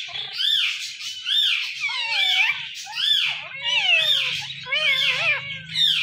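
Indian ringneck parakeet calling: a steady run of short arching calls that rise and fall in pitch, roughly one a second, with smaller chattering notes in between.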